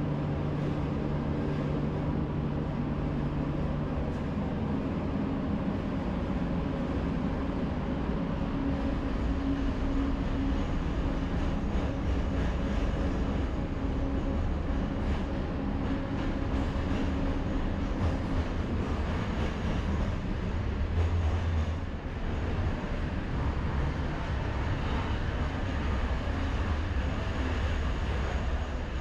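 Cabin running noise of an LRT Kelana Jaya line car, a driverless linear-induction-motor metro train, travelling along the track: a steady rumble. Its low motor hum dies away within the first dozen seconds, and the rumble grows heavier later on.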